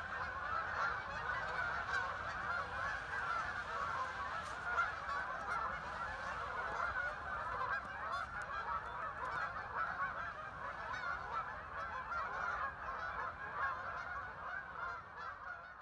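A huge flock of waterfowl calling all at once: a dense, continuous chorus of countless overlapping calls with no break.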